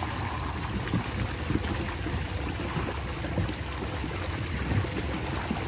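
Water splashing and sloshing as people wade through a shallow, muddy fish pond and drag a net through it, with short irregular splashes over a steady low rumble.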